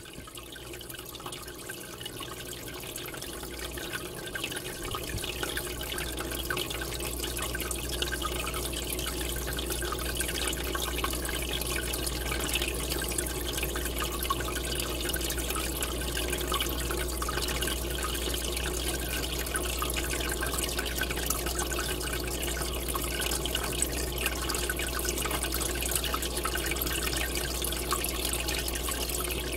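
Aquarium water bubbling and rushing from a rising column of air bubbles, a steady even wash of water noise that rises in level over the first several seconds. A steady low hum joins it about five seconds in.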